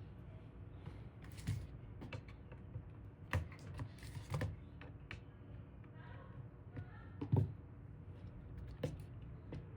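Scattered light clicks and taps from small computer parts being handled, with one louder knock a little past seven seconds in.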